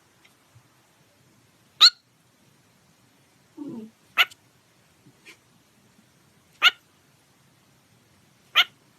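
A parrot giving four short, sharp calls about two seconds apart, with a softer, lower sound just before the second one.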